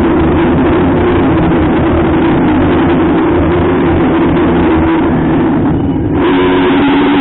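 A vehicle engine running loudly and steadily, with a short drop in level about six seconds in.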